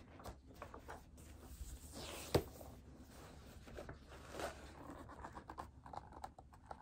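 Faint rustling and scraping as a large hardcover picture book is handled and lifted up, with one sharp knock a little over two seconds in, the loudest sound.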